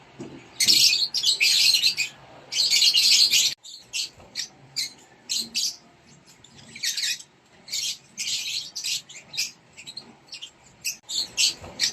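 Rosy-faced lovebirds in a nest box making harsh, raspy calls, the begging of a chick being fed. Long loud calls come in the first few seconds, then after an abrupt break, shorter, quieter calls in quick succession.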